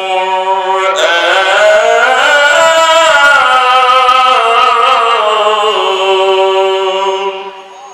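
A man's voice chanting Quranic recitation (tilawat) in one long melodic phrase, the pitch climbing then slowly falling, the held note tailing off near the end.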